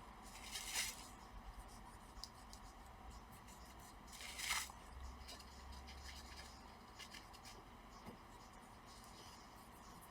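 Dry cotton swab rubbing old thermal paste off a laptop GPU die: faint scratchy wiping strokes, two slightly louder ones about a second in and around four and a half seconds.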